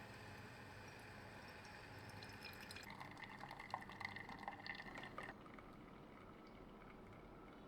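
Liquid pouring and dripping into a cup, faintly, for about two seconds in the middle, then cutting off suddenly.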